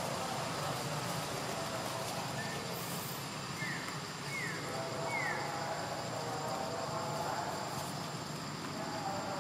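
Steady outdoor background noise with a faint high steady whine, and three short falling chirps in quick succession a few seconds in.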